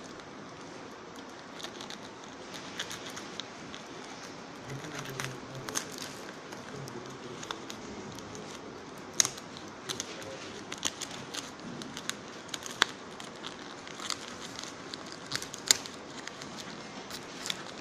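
Fingers picking and scratching at a parcel's plastic wrap and tape: crinkling plastic with scattered sharp clicks and crackles, and a few louder snaps about 9 and 16 seconds in.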